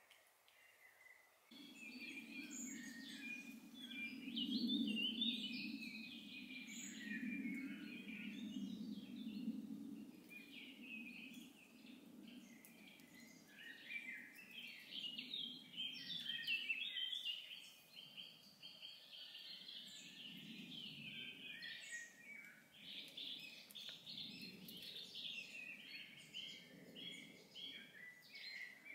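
Woodland birdsong: several small birds singing and chirping throughout, over a low steady hum that is strongest in the first ten seconds and then fades in and out.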